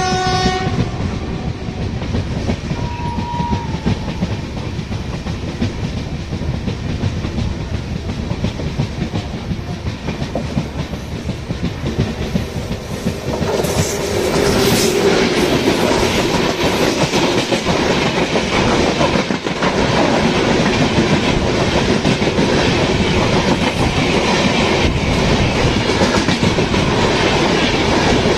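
Passenger train wheels clattering over the rail joints, with a short train horn blast in the first second. About 13 seconds in, the sound grows louder and harsher as an oncoming express, an electric locomotive and its coaches, passes close alongside on the next track.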